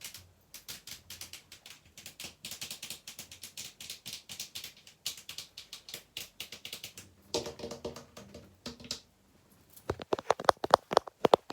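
Fast ASMR tapping and scratching, a rapid patter of small clicks and scrapes. About seven seconds in it changes to taps on something that rings with a low tone. After a short pause near ten seconds, louder, sharper taps follow.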